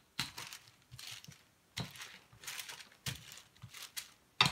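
Parchment paper crinkling and rustling in irregular bursts as hands press and lift it, with a sharper crackle near the end.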